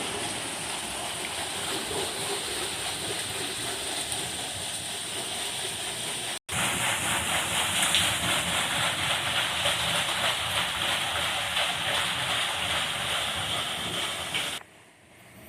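Steady rush of flowing water. It breaks off for an instant about six seconds in, comes back slightly louder, and drops away sharply near the end.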